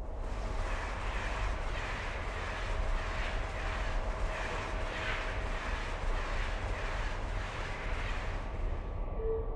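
Steady rumble and hiss of a vehicle-type background, with a faint steady hum running through it.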